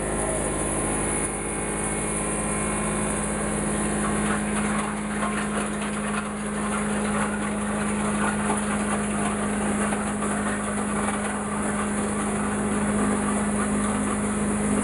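Wood shredder machine running steadily, a constant motor drone with a strong steady hum.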